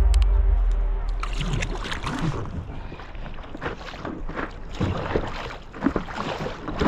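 Paddle strokes and water splashing and lapping against a stand-up paddleboard, in irregular splashes. Background music fades out over the first second or two.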